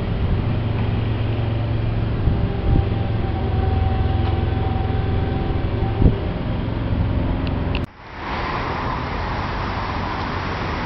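An engine runs steadily with a low hum amid street noise. About eight seconds in, the sound cuts off abruptly and a steady hiss of outdoor noise takes over.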